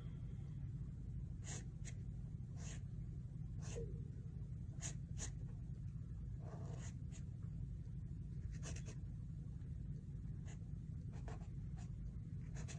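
Pen strokes on sketchbook paper: a dozen or so short strokes with pauses between them, over a steady low hum.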